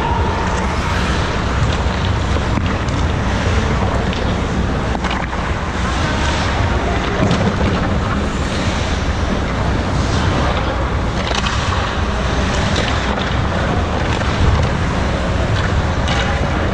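Steady rushing noise of an indoor ice-hockey rink, with a few faint clicks of sticks and pucks from play at the far end of the ice.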